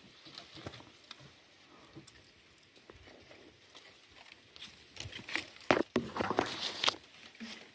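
Nipa palm fronds rustling and scraping against the boat, with a few sharp taps. The sounds are faint and scattered at first, then louder and closer together about five to seven seconds in.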